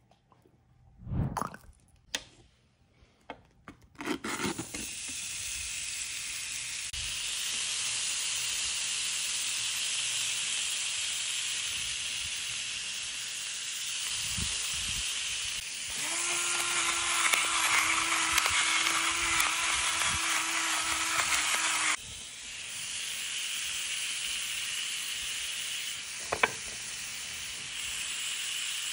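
Thin-sliced beef sizzling on a hot electric grill pan, a steady hiss that starts a few seconds in after a few light knocks of handling. A low steady hum sounds over the sizzle for several seconds in the middle.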